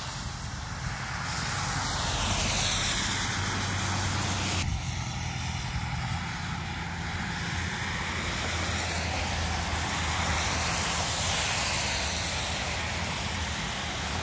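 Steady rumble of an aircraft passing overhead, with a slowly wavering whoosh.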